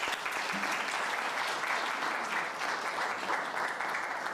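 Audience applauding steadily, the clapping dying away at the end.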